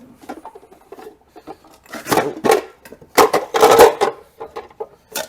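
Kitchen utensils and cookware clattering and rattling as they are handled, in two bursts about two seconds and three and a half seconds in, then a single sharp click near the end.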